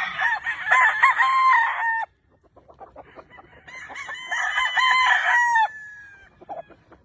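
Gamefowl roosters crowing: one long crow ends about two seconds in, and a second long crow follows from about three and a half seconds to nearly six, trailing off at the end.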